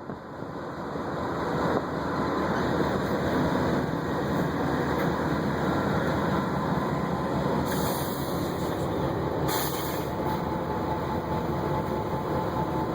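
Loaded coal train rolling past, a steady rumble of cars on the rails that builds over the first couple of seconds and then holds, with two short hissing bursts about eight and nine and a half seconds in.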